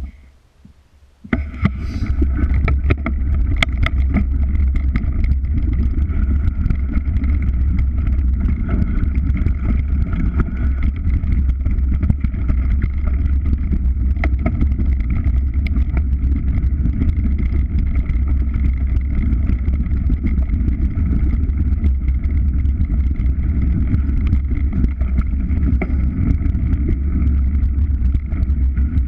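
A vehicle's engine running steadily with a heavy low rumble. It starts about a second in, after a brief quiet moment.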